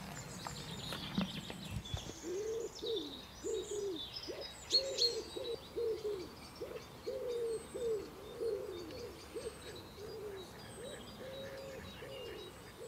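A pigeon cooing: a long run of short, low coos, each rising and falling, about two a second, with faint chirps of small birds above.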